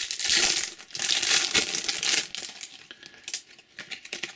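Foil wrapper of a trading-card booster pack being torn open and crinkled by hand: loud crinkling for about two seconds, then quieter rustling.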